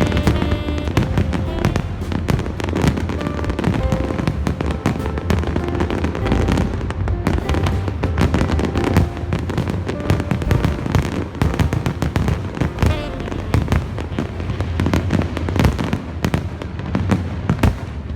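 Aerial fireworks bursting and crackling in quick succession, with a heavy low rumble underneath and show music audible in places, mostly in the first few seconds.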